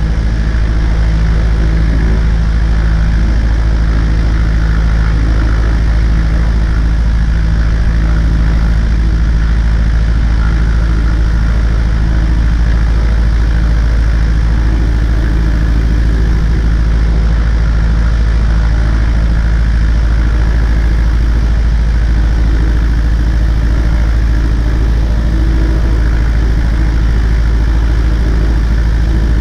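Light aircraft piston engine and propeller of a Cessna 140A running steadily at constant power, with a heavy low rumble underneath and no change in pitch.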